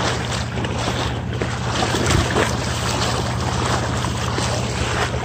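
Footsteps wading and sloshing through shallow floodwater, with a steady low rumble of wind on the microphone.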